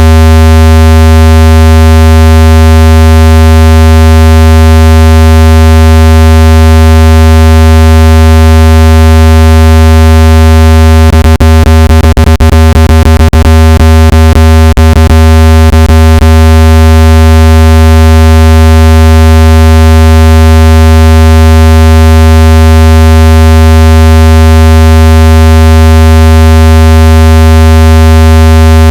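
Loud, steady, buzzy low electronic tone with many overtones, a water-eject sound meant to vibrate water out of a phone speaker. A flurry of sharp clicks breaks in about 11 to 16 seconds in.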